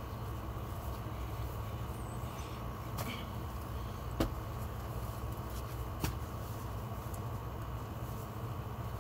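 Steady low outdoor rumble with three sharp knocks, about three, four and six seconds in, as a dead tree branch is handled.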